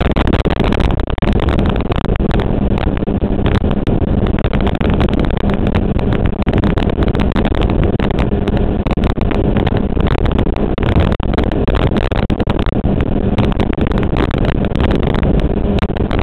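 Wind buffeting the microphone of a fairing-mounted camera at cruising speed, over the steady drone of a 1994 Suzuki GSX-R 750's inline-four engine held at an even speed.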